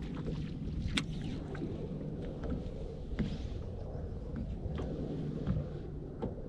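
Steady low rumble of wind and water lapping against a bass boat's hull, with a few faint clicks and knocks.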